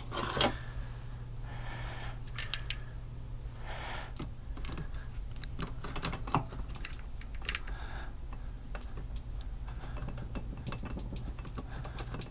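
Light, irregular metal clicks and clinks of motorcycle clutch parts being handled and fitted into the clutch basket.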